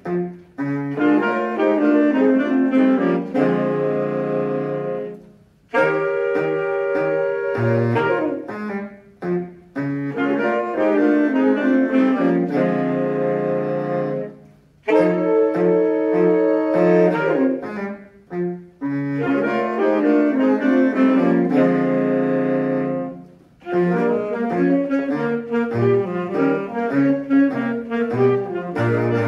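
Saxophone ensemble, with a baritone saxophone on the low part, playing a swinging jazz blues in stacked chords and riffs. The phrases break off with short pauses about every nine seconds.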